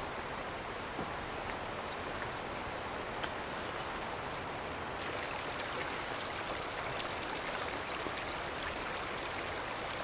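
Steady light rain, an even wash of sound with scattered single drops ticking.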